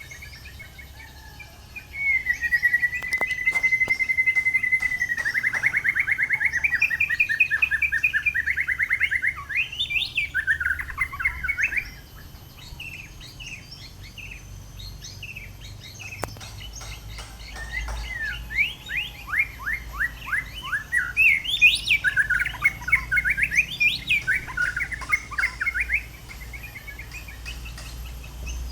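White-rumped shama (murai batu) singing loudly: a long held whistle that breaks into fast trills and varied warbled phrases, a few quieter seconds in the middle, then another run of varied whistled phrases.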